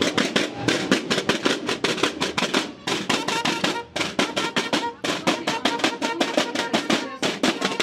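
Marching drums of a drum corps (banda de guerra) beaten with sticks in unison, a fast cadence of sharp strokes with short gaps between phrases.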